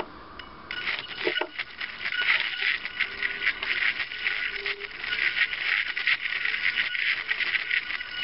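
Tiny 7 mm pager DC motors driving the robot leg's titanium worm gears, running with a high, fluttering buzz that rises and falls in loudness as the leg joints move; it starts about a second in.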